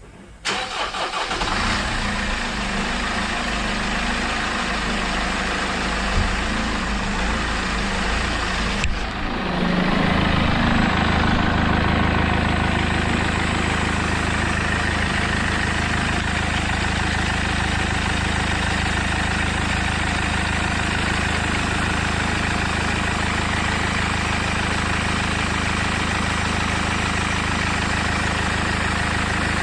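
Mercedes OM646 four-cylinder common-rail diesel being cranked on the starter for about eight seconds before it catches about nine seconds in. It runs a little faster for a few seconds, then settles into a steady diesel idle.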